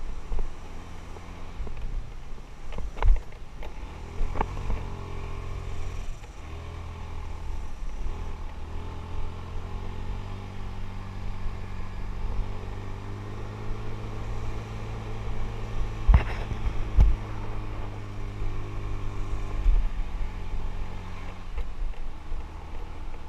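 Motorbike engine running steadily as it rides a rough dirt track, with a low rumble underneath. A few sharp knocks come through, one about three seconds in and a pair a little past the middle, as the bike jolts over the ruts.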